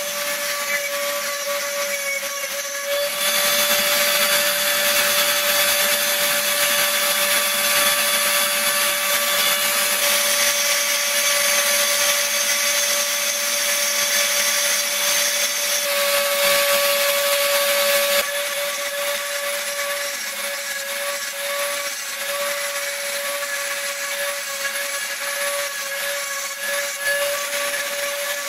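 Dremel rotary tool running with a steady high whine, its diamond burr grinding into stone. The grinding gets louder about three seconds in and eases off again about two-thirds of the way through.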